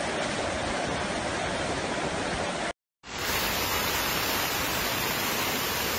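Rushing floodwater and rain: a steady, even rush of noise, broken by a split second of silence about three seconds in.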